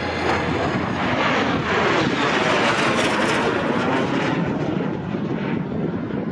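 Canadair CT-133 Silver Star jet trainer's Rolls-Royce Nene turbojet making a low flyby, a loud jet roar that swells to its peak about two to three seconds in, its pitch sweeping as the aircraft passes, then easing.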